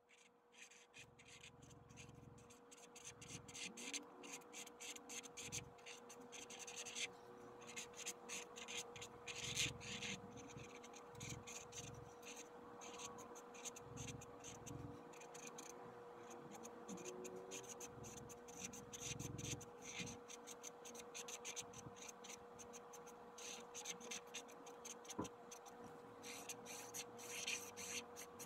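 Black felt-tip marker drawing on a canvas panel: faint scratching in many short strokes as it traces outlines.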